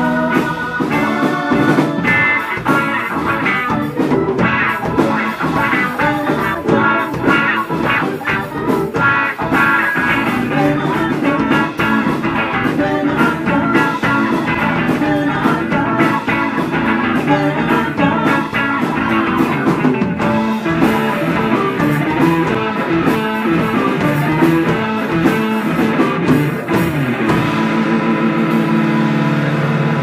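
Live psychedelic rock band playing: electric guitar over a Vox Jaguar combo organ, bass and drum kit. About 27 seconds in, the playing settles into a steady held chord with fewer drum hits.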